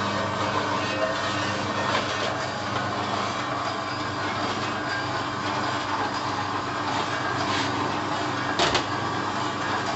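Electric dough-sheeting machine running steadily: a motor hum with the rattle of its rollers and gearing, and a few knocks, the loudest near the end.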